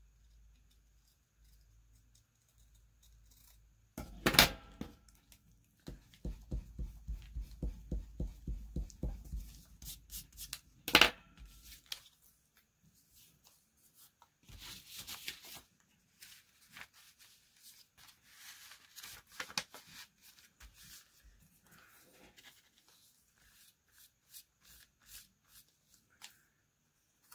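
Paper handled by hand for a collage: rustling, a run of about a dozen quick regular scratchy strokes, a sharp click, and a short tearing sound about halfway through.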